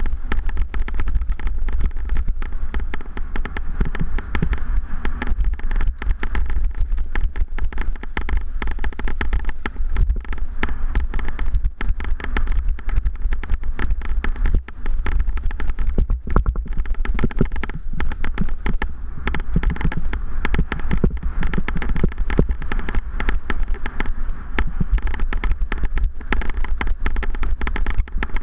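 Mountain bike riding over a rough, stony dirt trail: a dense, irregular rattle of knocks from the bike and its handlebar-mounted camera shaking over the bumps, over a heavy low rumble of wind buffeting the microphone.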